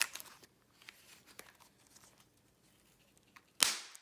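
A slime-filled Pop Pets toy capsule bursting with one sharp pop about three and a half seconds in, after a brief crackle at the start.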